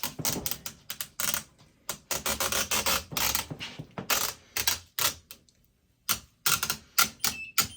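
Rapid clicking, knocking and rustling of plastic as refrigerator bins, shelves and protective film are handled, with a short pause about two-thirds of the way through.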